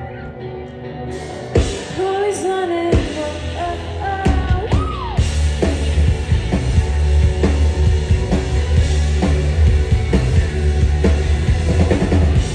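A live rock band playing: a woman sings over electric guitars, then about four seconds in the full band comes in louder, with heavy bass and drums.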